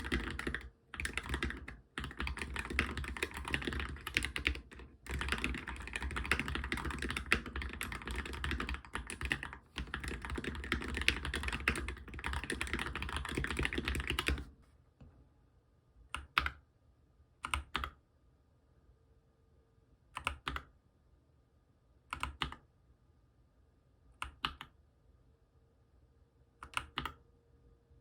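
Fully lubed Monstargear MK308 optical-switch mechanical keyboard being typed on fast and continuously, with a few brief pauses. About halfway through the typing stops, and after that single keys are pressed one at a time, roughly every two seconds.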